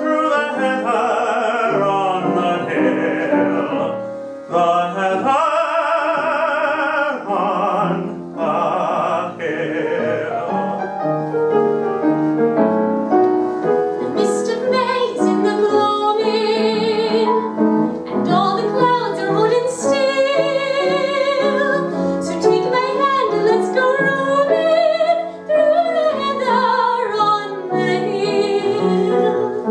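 A man and a woman singing a Broadway duet in a classical style over piano, holding long notes with vibrato for about the first ten seconds. After that the piano plays on alone in an instrumental interlude.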